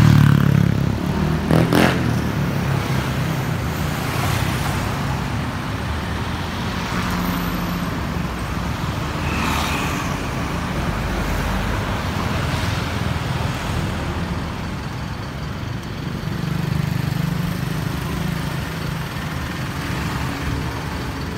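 Street traffic: cars, pickup trucks and motorbikes driving past close by, a steady engine and tyre rumble. It is loudest at the start as a vehicle passes near, and there is a sharp knock about two seconds in.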